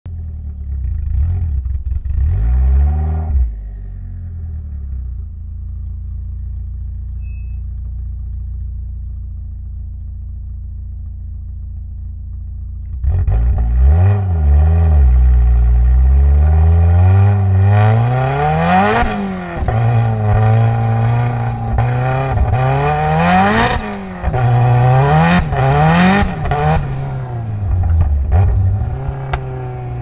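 Mitsubishi Lancer Evolution X's turbocharged four-cylinder engine, tuned to 500 hp, idling with two short blips of the throttle. About thirteen seconds in it pulls away and accelerates through first and second gear, the revs repeatedly rising and dropping with each throttle lift and gear change, with a high whine climbing above the engine.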